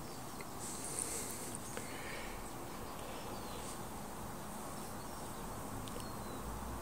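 Quiet, steady background hiss with a few faint, brief high-pitched chirps.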